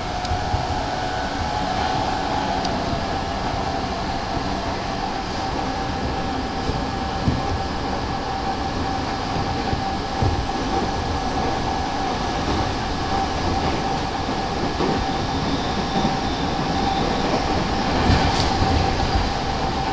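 Interior running noise of an E217 series electric commuter train, heard from inside a motor car by the door. Steady rumble of wheels on rail with a level whine and a few scattered clicks.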